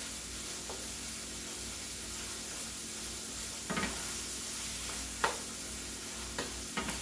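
Ground beef and onions sizzling as they brown in a frying pan, stirred and broken up with a wooden spoon, with a few short knocks and scrapes of the spoon against the pan.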